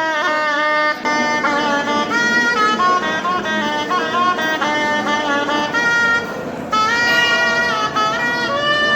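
Music: a reedy wind instrument plays a melody in held notes joined by short slides.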